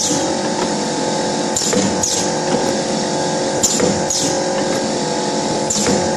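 YX400 wire-cut cookie machine running with a steady mechanical hum, overlaid by a pair of short falling swishes that repeat about every two seconds as it deposits row after row of dough pieces.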